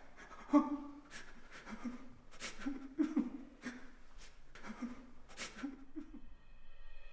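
A person's voice in short breathy bursts, about two a second. Near the end a sustained musical chord comes in.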